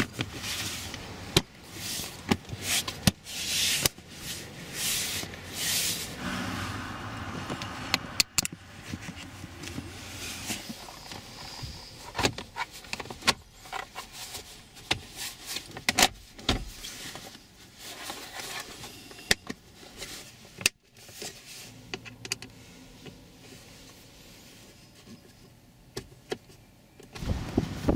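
Plastic car interior trim panels being handled and refitted: scattered clicks, knocks and rustling as panels are pressed and clipped back into place and screws are driven into the steering column cover.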